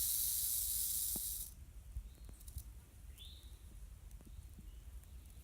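A loud, steady high-pitched hiss that cuts off abruptly about one and a half seconds in. Quiet outdoor background follows, with one short rising-and-falling chirp and a few faint clicks.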